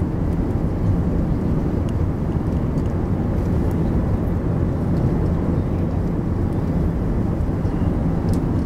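Steady low rumble of cabin noise inside an Airbus A380-800 on approach to landing: engines and airflow heard through the fuselage.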